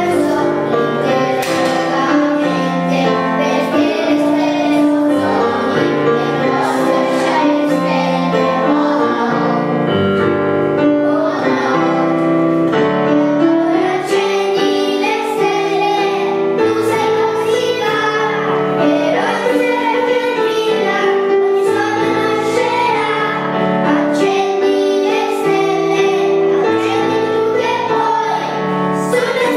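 A group of young children singing a song together, with piano accompaniment.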